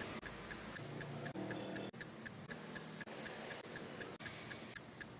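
Clock ticking, fast and even at about four ticks a second, with faint background music underneath.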